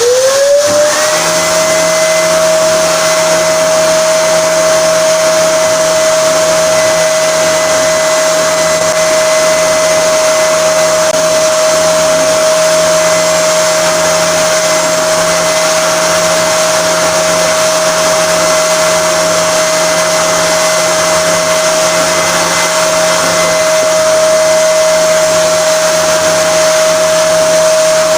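A workshop electric motor spins up to full speed about a second in, then runs at a steady high whine with no change in pitch or load.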